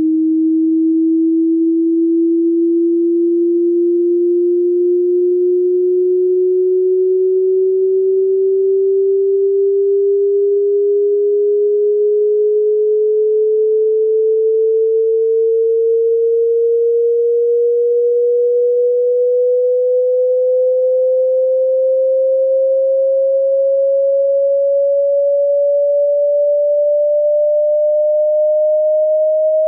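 A single pure sine-wave test tone at steady loudness, rising slowly and evenly in pitch by a little over an octave: a frequency sweep played as a hearing test.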